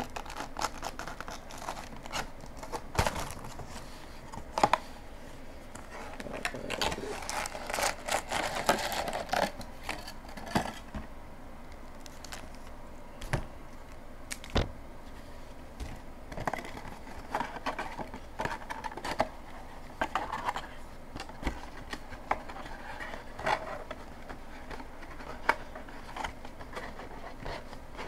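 Trading-card packs in their wrappers being taken out of a cardboard hobby box and stacked on a table: rustling and crinkling of the wrappers, loudest for a few seconds in the first half, with scattered light knocks and taps as packs are set down.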